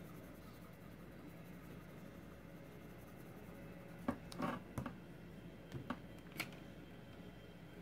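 Faint sound of a Prismacolor Premier colored pencil shading on a coloring-book page. A few short scratchy strokes and light ticks come in a cluster about halfway through, over a low steady hum.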